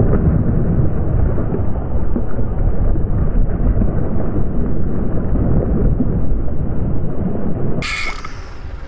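Water splashing and churning as a large fish thrashes at the surface, under a loud, uneven low rumble. About a second before the end it gives way to a quieter, clearer sound.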